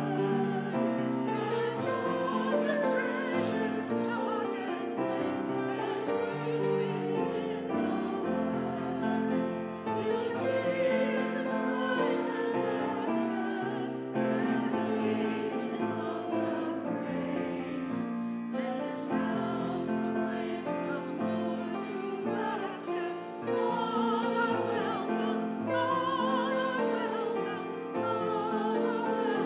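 Church choir and congregation singing a hymn together, with sustained, wavering voices and instrumental accompaniment.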